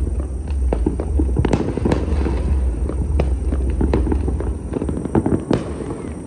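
Many fireworks and firecrackers going off across a city at once: a dense, irregular crackle of overlapping bangs and pops over a steady low rumble that eases off about five seconds in.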